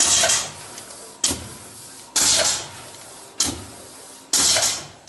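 Holis MS 500 automatic horizontal-blind machine cycling, each cycle feeding a slat into the ladder cords. Its sound is a repeating series of hissing bursts, about one a second: longer hisses take turns with shorter, sharper ones.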